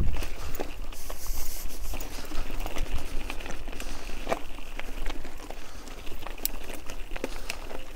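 Bicycle rolling over rough ground: irregular clicks and rattles over a steady rush of noise.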